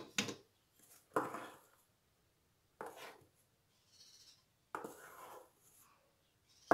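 A few short, separate knocks and scrapes of kitchen utensils, among them a plastic sieve being set on a steel mixing bowl of cake batter, spaced about a second apart.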